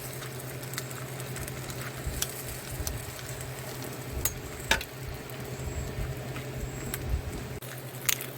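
A rice-paper pizza with egg, cheese and tomato paste frying in a pan over a lit camp burner, sizzling steadily. A low hum runs underneath, and a few sharp clicks come now and then.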